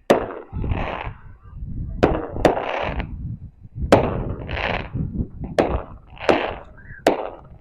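Nexus 100-shot consumer firework cake firing: a series of sharp bangs at uneven intervals of about half a second to a second and a half, each followed by a short hissing crackle.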